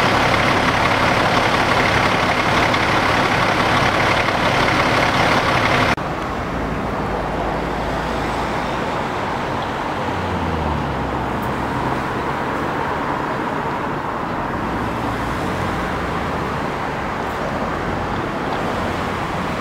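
Idling fire apparatus and ambulance engines running close by: a steady rumble with a hum. About six seconds in it cuts to quieter street traffic, with a vehicle driving past around ten seconds in.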